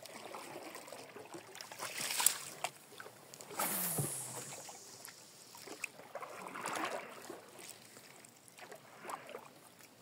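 Water splashing and sloshing around a small boat, with swishes about two seconds, three and a half seconds and seven seconds in.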